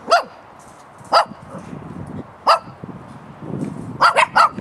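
Puppies yapping: three single short yaps about a second apart, then a quick run of three near the end.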